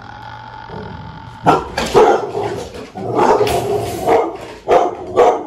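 A dog barking loudly and repeatedly, starting about a second and a half in: a couple of barks, a longer run of barks, then several sharp single barks near the end.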